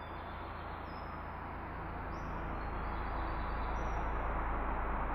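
Outdoor background noise: a steady rushing, like wind or distant traffic, slowly growing louder, with a few faint high bird chirps.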